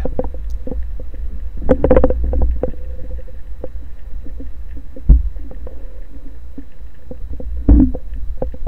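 Underwater sound through a speargun-mounted camera housing: a constant low rumble of swell surging over the reef, with scattered sharp clicks. A sharp low knock about five seconds in, and two brief pitched sounds, one about two seconds in and one near the end.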